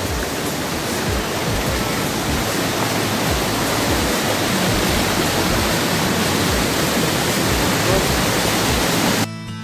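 Panimur waterfall on the Kopili River: a steady, loud rush of falling water, cutting off abruptly for a moment near the end.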